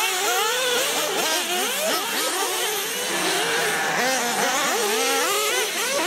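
Several radio-controlled off-road race cars running together, their motors revving up and down in overlapping rising and falling whines.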